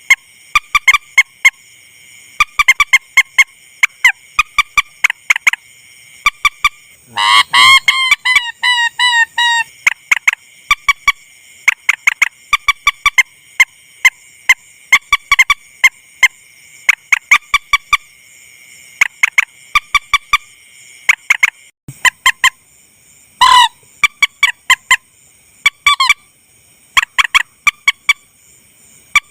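Rail (mandar) calls played as a bird lure: short sharp notes repeated in quick runs, with a longer harsh, rattling call about seven seconds in and another brief loud call about twenty-three seconds in.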